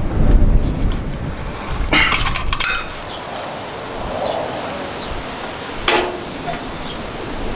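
Wind rumbling on the microphone at first. Then a quick cluster of metallic clinks about two seconds in and a single sharper click near six seconds, from tools and metal parts being handled at a tractor's engine during an oil change.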